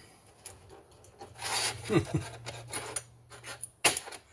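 Small stamped-steel chainsaw bucking spikes being handled and slid across a metal bench top: scraping and light metal clinks, with one sharp metallic click near the end.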